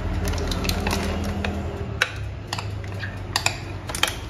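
A metal spoon scraping and tapping against a glass mixing bowl as thick cake batter is scraped out, a few sharp clicks from about two seconds in, over a low steady hum.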